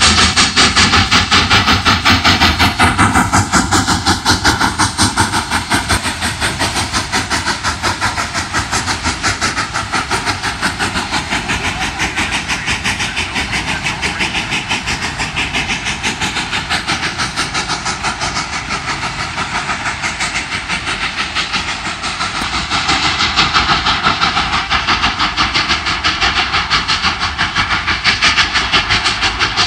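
K-36 class 2-8-2 steam locomotive No. 488 working past with a train of coaches: a fast, steady rhythm of exhaust chuffs with steam hiss and the clatter of wheels on rail, louder again over the last seven seconds.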